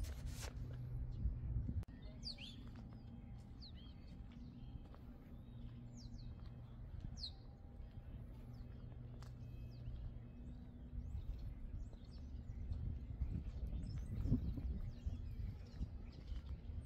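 Small birds chirping now and then with short, high tweets, over a steady low hum.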